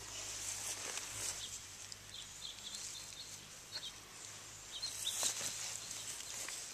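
Barbet puppies scuffling and rustling about while they play, with scattered light clicks and several short, faint high chirps.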